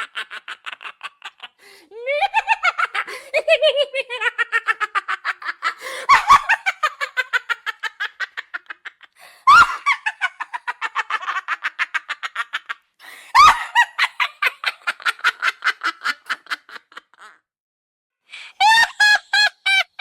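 Witch's cackling laughter: a high-pitched voice in rapid staccato 'ha-ha-ha' bursts, running in several long bouts that each start with a sharp shriek. A short silence comes near the end, then a fresh cackle begins.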